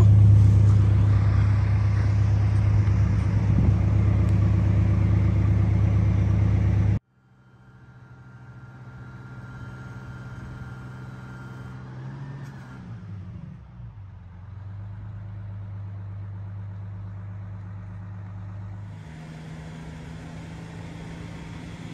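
Fire ladder truck's engine running with a loud, steady low drone that cuts off abruptly about seven seconds in. A quieter, steady engine hum follows, with a faint whine, as heard from inside a moving truck's cab.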